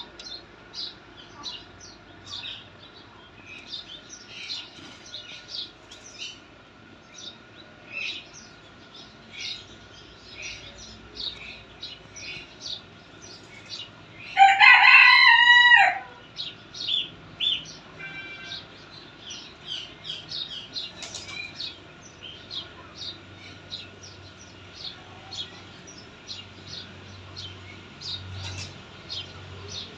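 Ducklings peeping in quick short high notes all the way through. About halfway through, one loud drawn-out fowl call lasting about a second and a half stands out above them.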